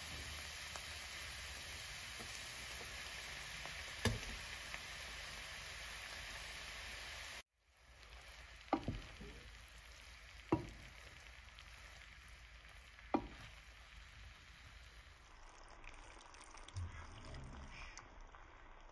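Sliced mushrooms frying in butter in a nonstick pan with cooked spaghetti on top, sizzling steadily. After a cut the sizzle is quieter while a wooden spatula tosses the spaghetti, knocking sharply against the pan three times.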